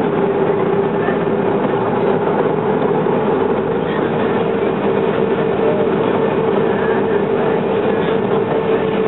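Cabin noise inside a Boeing 737-300 taxiing: its CFM56-3 turbofan engines running at low power, heard as a steady rumble with a constant whine.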